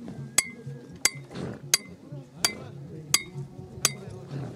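A hammer striking metal at a steady pace, about one sharp ringing clink every 0.7 seconds, seven strikes in all.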